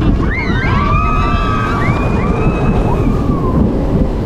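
Several riders screaming in long cries that rise and then hold, as a shoot-the-chutes ride boat plunges down its drop into the water, over a heavy rush of wind and water noise.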